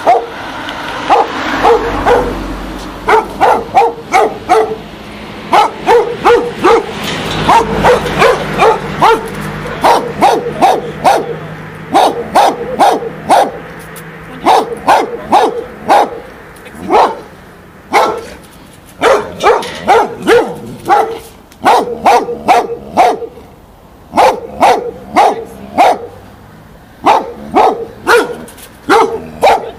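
A dog barking over and over, in quick runs of two to five sharp barks with short pauses between them.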